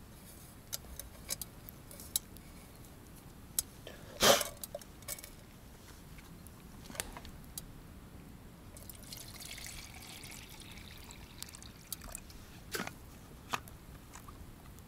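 Liquid dripping and trickling among scattered sharp clicks and knocks, the loudest knock about four seconds in, with a soft hissing stretch from about nine to eleven seconds.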